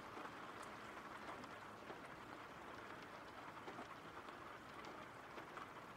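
Faint steady rain, an even hiss with scattered small drop ticks.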